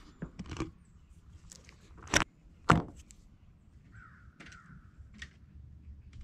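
Two sharp knocks about half a second apart, then a bird calling twice.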